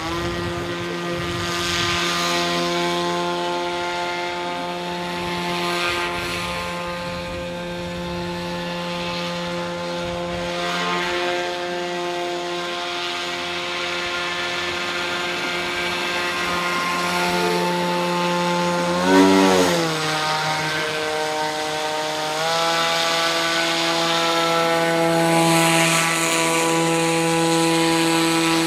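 RC airboat's NTM PropDrive 50-60 brushless outrunner motor spinning an APC 7x8 air propeller, a steady buzzing whine held back to about half throttle because the spinner is out of balance. About two-thirds of the way through, the pitch wobbles quickly up and down at the loudest moment. Shortly after, it steps up slightly and holds.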